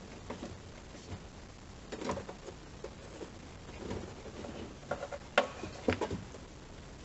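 Light scattered clicks, taps and rubbing of hands and a tool working the hatch receiver unit loose, with one sharper click about five seconds in.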